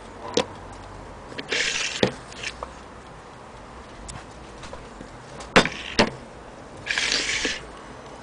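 Small antique French mantel clock with a platform escapement ticking faintly while its wooden case is handled and moved on a table. A few sharp knocks and two brief scraping sounds, about a second and a half in and again near the end, stand out above the ticking.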